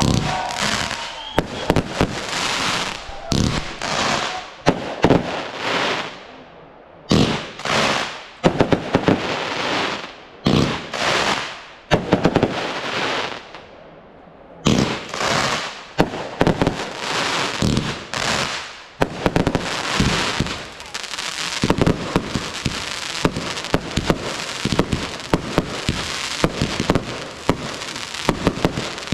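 Fireworks display: a quick succession of bursts, each a loud bang trailing into crackle, about one a second in the first half with a couple of short lulls. Past the middle it turns into a dense, near-continuous crackling of many small rapid reports.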